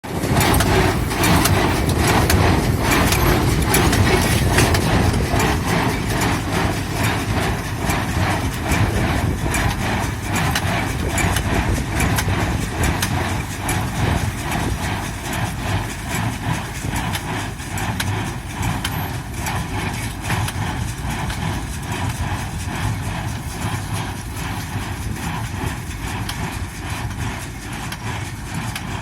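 Pick-up hay baler running after repair, with an engine's steady drone under a regular, rhythmic knocking from the baler's mechanism.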